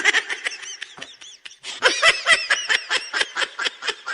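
A rapid run of short, squeaky, high-pitched chirps, sparse at first and then quickening to about six a second.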